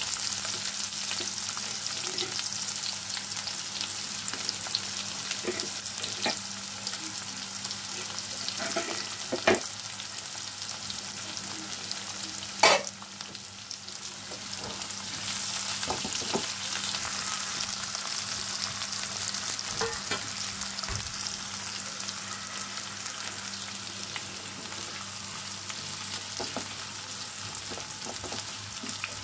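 Chopped onions sizzling in hot oil with whole spices in a nonstick frying pan, stirred with a spatula. A few sharp knocks against the pan, the loudest about nine and a half and twelve and a half seconds in.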